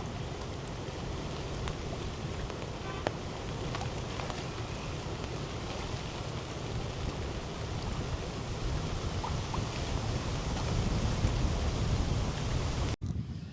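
Strong wind buffeting the microphone in a steady low rumble, over an even hiss of rain.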